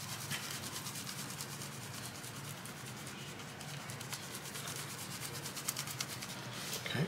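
Dry beef bouillon granules being shaken from a seasoning container onto a raw brisket: a rapid, rhythmic scratchy shaking at several strokes a second, kept up steadily.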